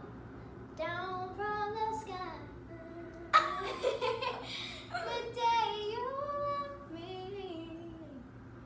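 Young girls singing unaccompanied, holding and sliding between notes. A sudden loud burst of laughter comes about three and a half seconds in.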